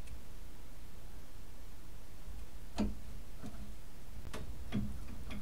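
A few short, light metal clicks and taps, about five in the second half, as parts of a tower clock's clockwork are handled and slid apart, over a low steady hum.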